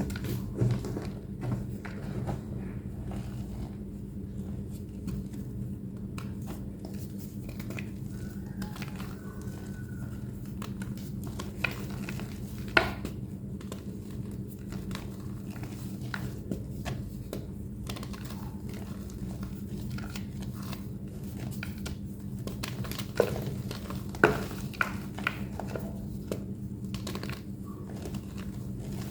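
A thick block of plain white homemade gym chalk being squeezed and crumbled by hand: scattered soft crunches and crackles, with a few sharper cracks about 13 s in and again around 23–25 s, over a steady low hum.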